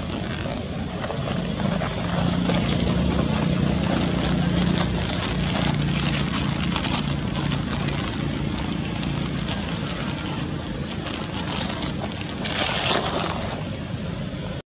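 Steady outdoor background noise with a low hum underneath, and a brief louder noisy swell about thirteen seconds in.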